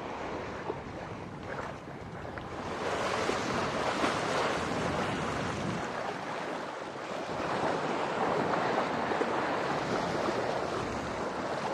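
Wind and water rushing past a sailboat under sail, a steady noise that swells a few seconds in, with wind buffeting the microphone.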